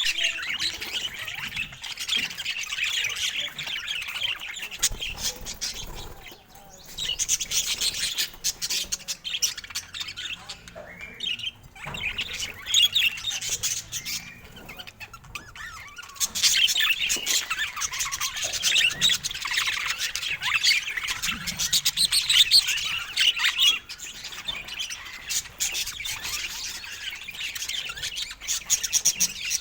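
Budgerigar chatter: fast, scratchy warbling mixed with chirps and clicks, running in long spells with brief breaks about six and eleven seconds in.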